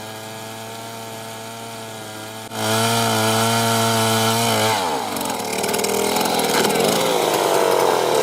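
A motor-driven wood-cutting machine running at a steady pitch, jumping louder about two and a half seconds in. Near the five-second mark its pitch sags and a rough sawing noise takes over as it cuts into wood.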